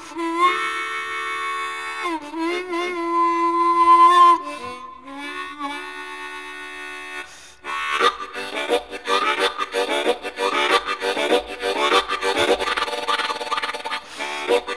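Southern rock recording: a solo harmonica opens with held and bent wailing notes. About eight seconds in, the full band enters with electric guitars and drums while the harmonica keeps playing.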